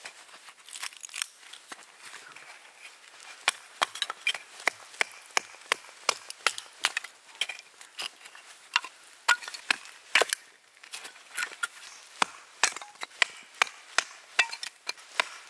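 A scandi-grind bushcraft knife being batoned through small pieces of firewood: a wooden baton knocking on the blade's spine, with the wood cracking and splitting. The knocks and cracks come irregularly, a few a second.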